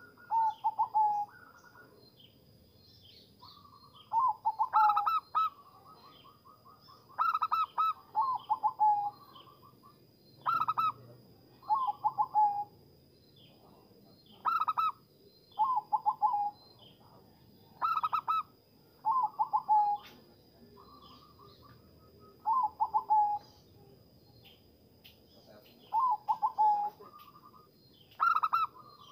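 Zebra dove (perkutut) cooing: short rolling coo phrases repeated every two to three seconds. A faint steady high-pitched tone runs underneath.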